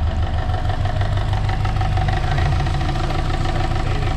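Subaru 2.5-litre flat-four engine idling with a rapid, steady knock from the timing cover: the sign of a failed hydraulic timing belt tensioner that has leaked out its fluid.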